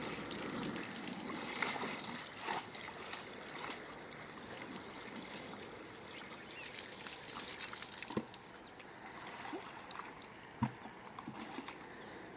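Water poured from a plastic bucket into a portable petrol water pump to prime it, a steady trickle and splash that thins out about two-thirds of the way in. A few sharp knocks follow near the end.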